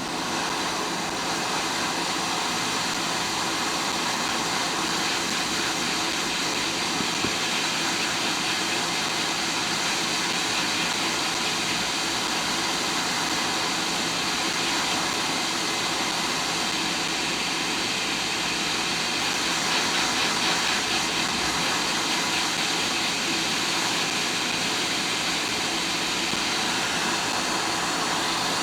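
Hot air rework station blowing a steady stream of hot air onto the iPhone 7's audio IC to melt its solder for removal.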